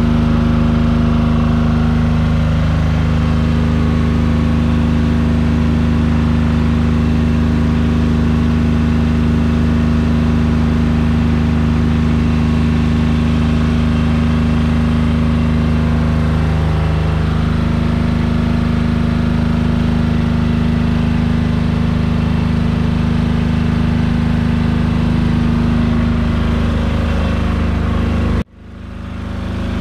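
Powerzone PDG 8700SS silent-type diesel generator running steadily at constant speed. It is loud, about 88–90 dB on a sound meter held beside it. The sound drops out briefly near the end and then resumes.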